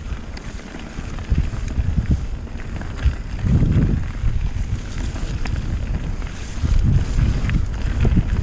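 Mountain bike riding down a dirt forest singletrack: wind buffeting the microphone in swelling gusts, over tyre rumble on the trail, with scattered sharp knocks and rattles from the bike over the rough ground.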